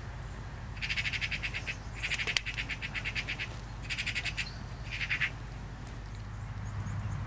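Eurasian magpies chattering: four bursts of rapid rattling calls, with a single sharp click about two and a half seconds in.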